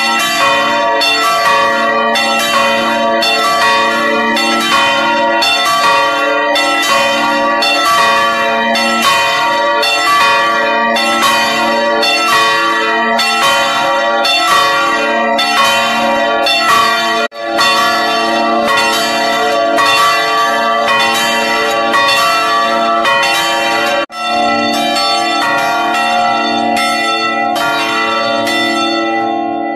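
Full peal of three swinging church bells, tuned E'', D'' and A#' and weighing about 150, 200 and 490 kg. Their clapper strikes overlap at roughly two a second into a continuous ringing. The ringing breaks off for an instant twice.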